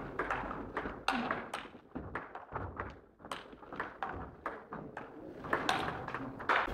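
Table tennis ball clicking sharply as it bounces on the table and is struck by the bats, a string of short, irregular ticks in a large hall.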